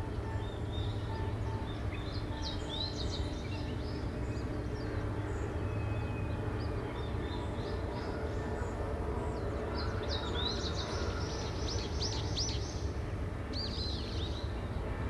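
Steady low rumble of shipyard background noise, with small birds chirping in quick bursts around two to three seconds in and again from about ten to fourteen seconds. A faint series of short, evenly spaced beeps sounds in the first couple of seconds.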